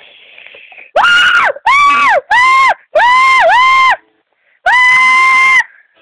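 A high-pitched voice screaming 'aaah' five times in quick succession, several cries swooping up and down in pitch and the last one held steady: a comic falling scream.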